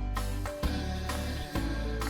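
Background music with a steady bass and plucked notes.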